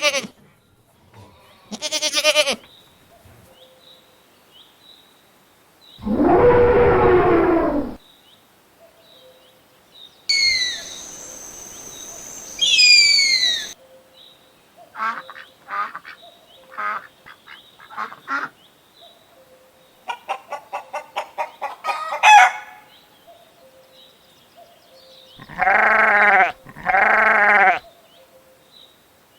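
A string of different animal calls, one short clip after another with quiet gaps between. A long, loud call comes around six to eight seconds in, falling whistle-like calls around eleven to thirteen seconds, a run of quick short calls and a rapid clatter in the middle, and two matching calls near the end.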